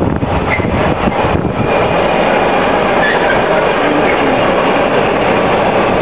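Container freight train's wagons rolling past, a loud steady rumble and rattle of steel wheels on the rails.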